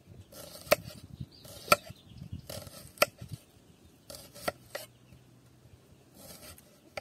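Kitchen knife slicing through a halved onion on a wooden cutting board: each cut is a short crisp scrape that ends in a sharp tap of the blade on the board, about five cuts roughly a second apart.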